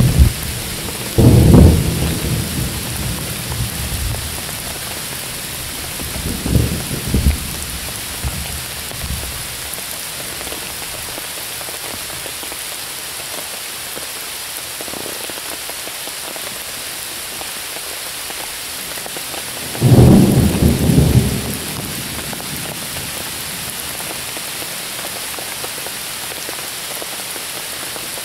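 Steady rain falling on the leaves of woodland trees, with thunder: a loud clap about a second in, a weaker rumble around six to seven seconds, and another loud clap about twenty seconds in, each dying away within a second or two.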